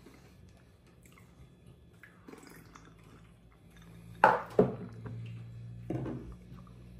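Quiet chewing of crispy fried chicken, then two sharp knocks about four seconds in as a small shot glass is set down hard on the table, and another lighter knock near the end, with a low hum between.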